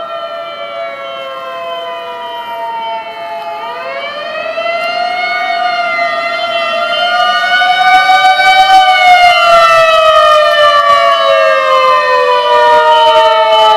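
Fire engine sirens wailing, two of them overlapping. One falls slowly in pitch right through while the other starts a new slow rise a few seconds in, peaks and falls again. Both grow louder over the second half.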